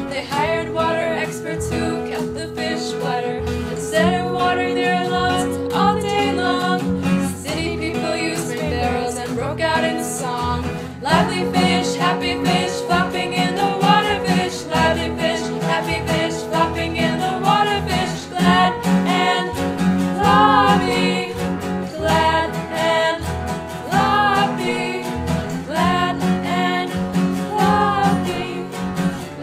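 Country-style music with guitar and a singing voice.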